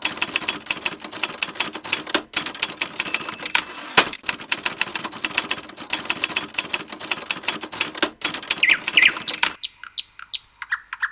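Rapid, fairly even percussive clicking, several sharp clicks a second, that thins out to scattered clicks near the end.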